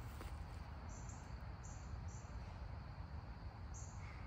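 Insects chirping: about five short, high chirps at uneven intervals over a low, steady outdoor rumble.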